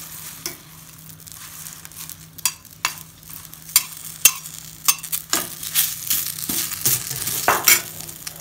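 Fresh curry leaves dropped into a hot, dry kadai and stirred with a metal spatula for dry roasting: a light hiss and crackle from the leaves, then, from about two seconds in, many sharp scrapes and clinks of the spatula against the pan, coming thicker in the second half.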